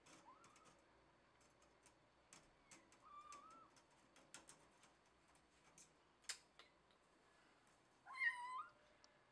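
Domestic cat meowing: two faint short meows, one near the start and one about three seconds in, then a louder wavering meow near the end. A few sharp clicks fall between them, the strongest about six seconds in.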